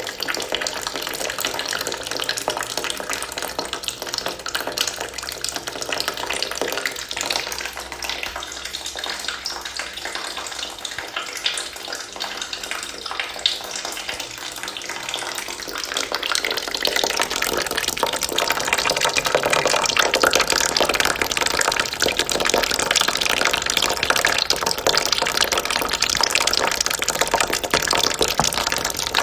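Water trickling and splashing into a bucket in a steady stream, growing louder and fuller a little past halfway.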